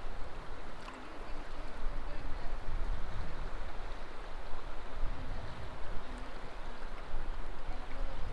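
A wild river flowing, a steady rush of water.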